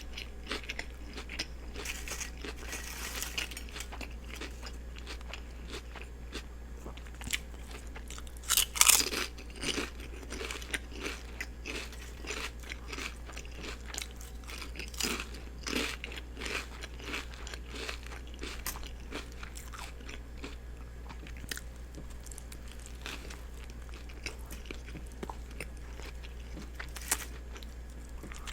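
Close-miked eating of a turkey and cheese sub with lettuce and onions: repeated bites and wet, crunchy chewing, loudest in a burst of crunching about a third of the way in. A steady low hum runs underneath.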